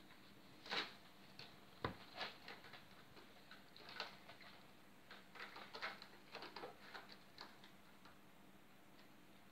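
Maine Coon kittens' claws and paws scratching and tapping on a sisal-wrapped cat tree post and its base: scattered, irregular light clicks and scratches, with a sharper knock about two seconds in and a busier flurry about halfway through.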